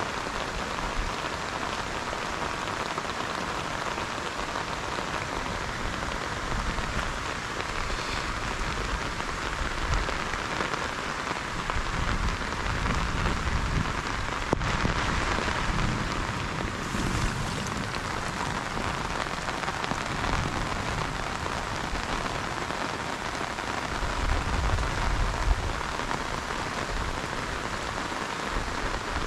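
Heavy rain falling steadily on flooded marsh and grass, an even hiss, with a low rumble swelling now and then.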